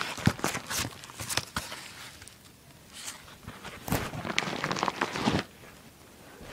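Packaging being opened by hand: crinkling and rustling with sharp clicks in irregular bouts, busiest about four to five seconds in.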